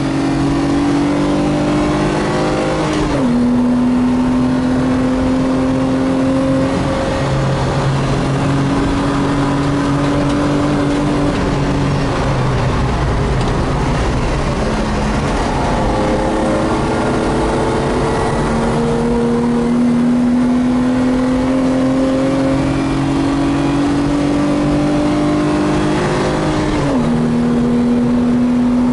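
BMW M50B25 2.5-litre straight-six running hard under acceleration in a BMW E28, heard from inside the cabin: the engine note climbs steadily, dropping sharply at an upshift about three seconds in and again near the end. Wind and tyre noise run underneath.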